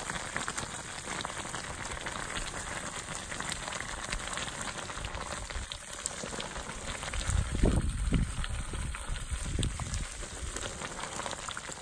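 Hot lime wash boiling as quicklime slakes in hot water: a steady fizzing and crackling bubbling, the sign that the mix has reached boiling temperature. A few low thuds come between about seven and ten seconds in.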